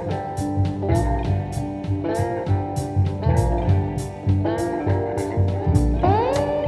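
Background music: electric guitar playing bluesy bent phrases over a steady drum beat, ending on a long upward bend that is held.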